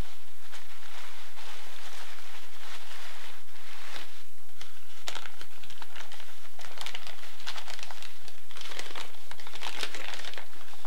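Packing material crinkling and rustling in the hands as a tightly wrapped shipping container is unwrapped, in dense, irregular crackles.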